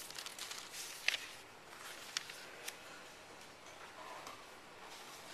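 Sheets of drawing paper being handled and shifted on a drawing board: scattered light clicks and rustles, the sharpest about a second in.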